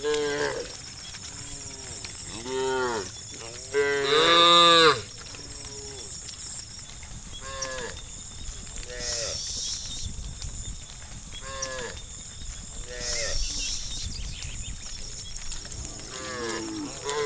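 A herd of cows mooing, one call after another from different animals every second or two, the loudest and longest call about four seconds in.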